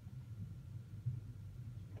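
Low steady hum with a single faint click about a second in.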